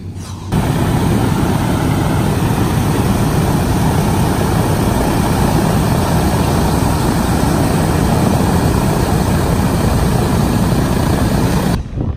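B-24J Liberator's four Pratt & Whitney R-1830 Twin Wasp radial engines idling, heard close up: steady and loud, cutting off suddenly near the end.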